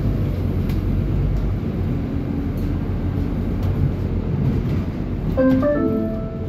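Scania city bus running, heard from inside as a steady low engine rumble with road noise. About five seconds in, an electronic chime of several short notes at different pitches sounds over it.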